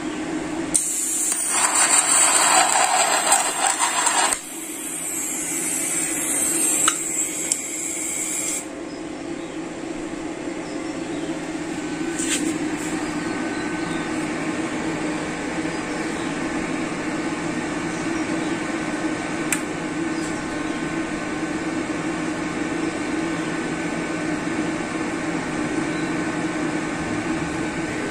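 TIG welding arc hissing and crackling on steel for about eight seconds, in two spells, then the Caldwell TIG 250 GP inverter welder humming steadily, with two short clicks.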